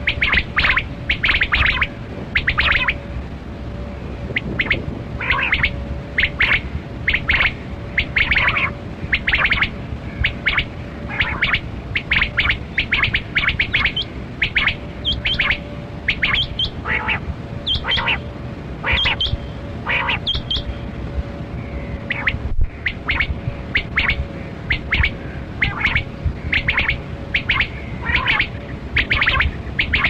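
Male rain quail (kali kirak batera) calling over and over: short, sharp, high notes in quick clusters of two to four, about once a second, with a steady faint hum underneath.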